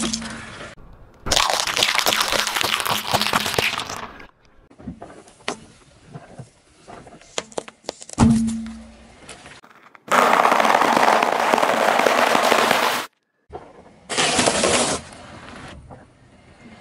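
Car tyre rolling slowly over small objects on asphalt and crushing them one after another: dense crackling and snapping as things break, a single sharp knock about eight seconds in, and a loud steady noise lasting about three seconds after it.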